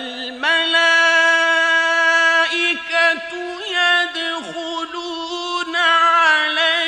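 Melodic Quran recitation by a male reciter, entering abruptly out of silence. He sustains long high notes with wavering melismatic ornaments and brief dips in pitch, and the ornaments are strongest near the end.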